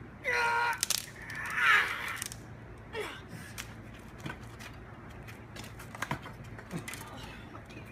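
A boy's short yells, then several sharp knocks as he chops with his hand at a towel-wrapped stick resting on cinder blocks.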